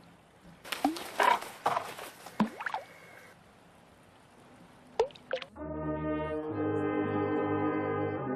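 A few sharp, irregular water splashes and drips, then brass music with long held notes starts about five and a half seconds in.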